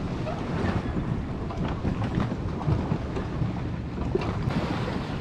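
Wind buffeting the camera's microphone: a steady, rumbling noise with a few faint clicks.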